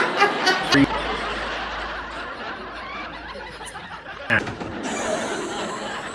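A person laughing in quick bursts, then a steady background noise with a sharp knock about four seconds in and a brief high hiss after it.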